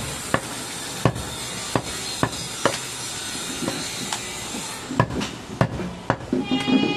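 Butcher's cleaver chopping through goat ribs onto a wooden stump chopping block: a dozen or so sharp knocks at an uneven pace.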